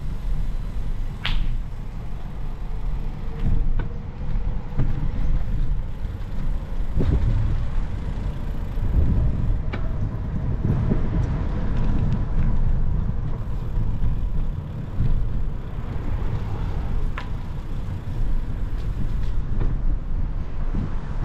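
Outdoor street ambience: a steady low rumble of road traffic, with a faint engine tone slowly rising through the middle and a few light knocks.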